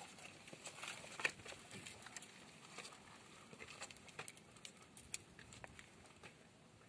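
Faint, irregular scuffs and taps of footsteps and hands on rock-cut stone steps as people climb.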